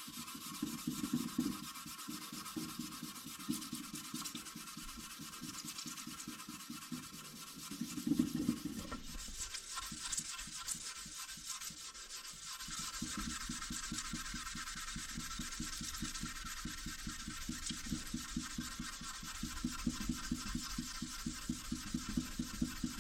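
Hand-sanding an aluminium radiator tank with 2000-grit sandpaper: steady back-and-forth rubbing strokes of paper on metal, taking off acid stains.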